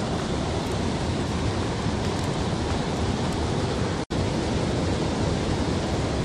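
Steady rush of river water running over a shallow rocky riffle, cutting out for an instant about four seconds in.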